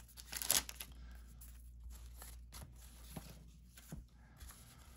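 Trading-card pack handling: a short rustle of the paper wrapper about half a second in, then soft slides and light ticks of cards being handled and laid down.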